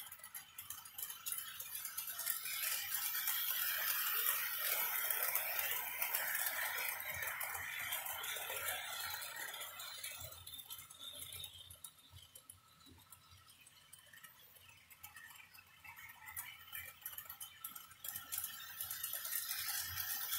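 Toy train rolling around its track with a rattling, clicking clatter, loud through the first half as it passes close by, fading low after about twelve seconds, and growing louder again near the end as it comes back around.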